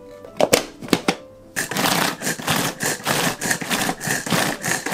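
A few sharp knocks, then from about a second and a half in a hand-pulled string chopper whirring and clattering as its cord is yanked again and again. The blades spin up in pulses, about three a second, chopping acai, banana and yogurt.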